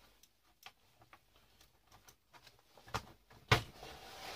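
Light scattered clicks and taps of a screwdriver and plastic circuit breakers being worked loose from a fuse box, with a sharp click about three seconds in and a louder knock half a second later.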